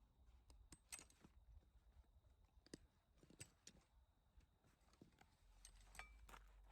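Near silence, broken by about a dozen faint, scattered clicks and light crunches.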